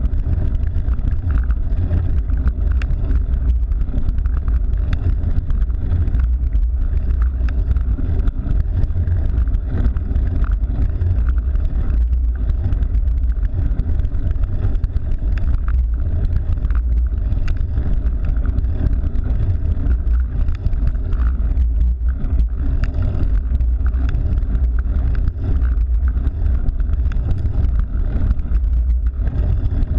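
Steady wind buffeting on the microphone of a camera carried on a moving cyclocross bike: a heavy, unbroken low rumble, with lighter road and tyre noise above it.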